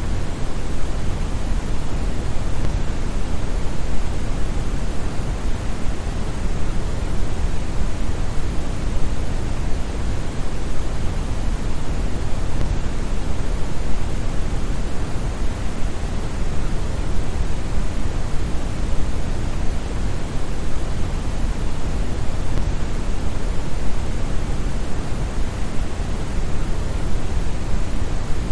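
Steady brown noise: an even, deep rushing hiss with most of its energy in the bass and little treble, like a distant waterfall.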